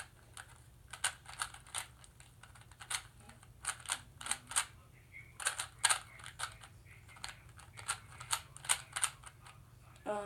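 Plastic 3x3 Rubik's cube being turned quickly by hand: uneven runs of sharp clicks as the layers snap round, several a second, broken by short pauses.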